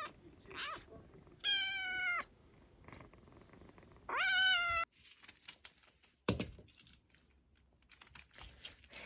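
Kitten meowing three times: a short call, a longer one falling slightly in pitch, then one that rises and holds. After that come light clicking and tapping and one sharp knock about six seconds in.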